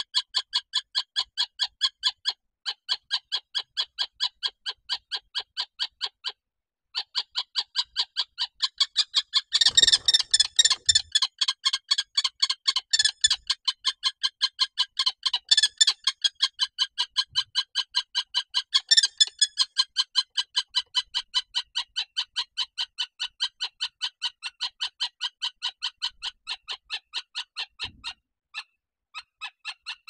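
Common kestrel giving a long, fast series of shrill alarm calls, about three a second, the defensive calling of a kestrel under attack. There is a low thump about ten seconds in, and another near the end.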